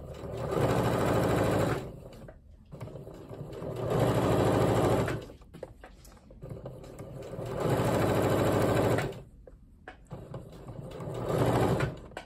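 Electric sewing machine stitching through quilt binding in four short runs of about two seconds each, stopping and starting between them, as the gap left in the binding is sewn closed.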